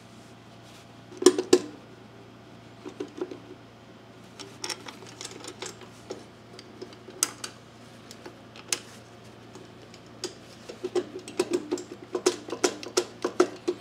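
The metal side cover of a Kawasaki FJ180V mower engine clicking and knocking against the crankcase as it is rocked back and forth by hand, not yet fully seated over the crankshaft and governor gear. Scattered taps, two louder knocks about a second in, and a quick run of clicks in the last few seconds, over a faint steady hum.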